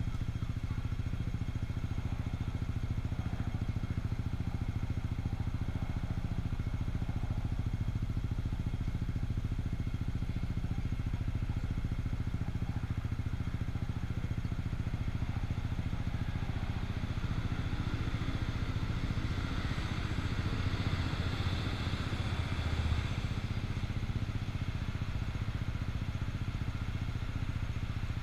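Yamaha Cygnus 125 cc single-cylinder scooter engine idling steadily while stopped. About eighteen seconds in, a louder swell of passing traffic rises and fades over a few seconds.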